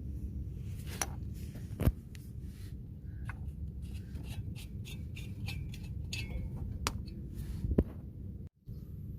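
Scattered sharp clicks and knocks, two louder ones about two seconds in and near the end, over a steady low hum.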